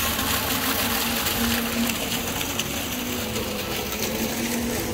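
Canal boat's motor running steadily, with water noise along the hull.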